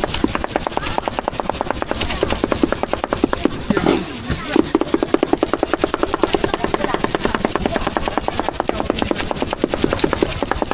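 Cleaver rapidly hand-chopping meat on a chopping board: a fast, even run of knocks at several strokes a second, with a short pause about four seconds in.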